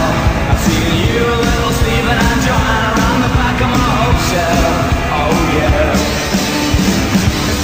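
Loud rock song with a lead vocal, the goal-celebration music of a Chicago Blackhawks goal horn recording.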